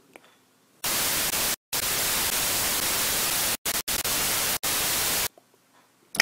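TV static: loud white-noise hiss starting just under a second in and lasting about four and a half seconds, broken by a few brief dropouts. A sharp click comes right at the end.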